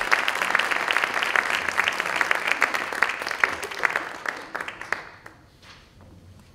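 Audience applauding, dense clapping that fades out about five seconds in.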